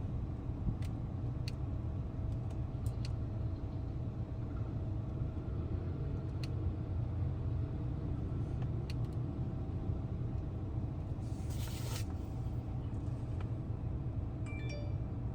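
Steady low rumble of a vehicle, with a few faint clicks and a short hiss about eleven seconds in.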